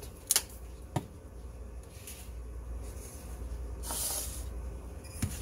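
A few light clicks and knocks of kitchen utensils, with a short hiss about four seconds in, as salt is shaken into a bowl of butter being mixed.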